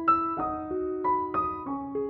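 Background music: piano playing a calm melody, its notes struck about three times a second, each ringing on as the next comes in.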